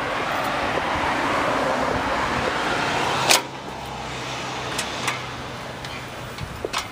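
A car passing on the road, its tyre and engine noise swelling steadily and then cut off abruptly by a sharp click about three seconds in, leaving quieter outdoor background with a few light clicks.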